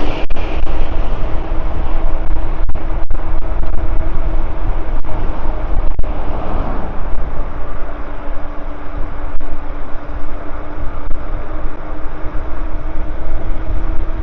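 Wind rushing over the microphone and road noise from an e-bike riding along at speed, with a steady hum underneath. A passing car fades away just after the start.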